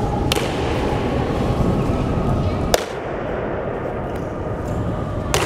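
Honor guards' boots striking a stone floor in a slow ceremonial march: three sharp strikes about two and a half seconds apart, over a steady background murmur.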